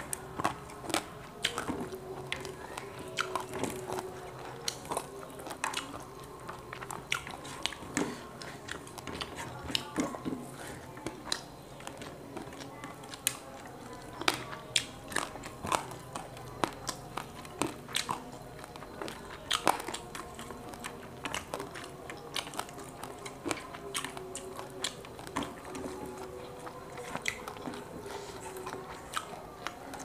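Close-miked chewing and crunching of grilled quail eaten by hand, with irregular sharp clicks all through.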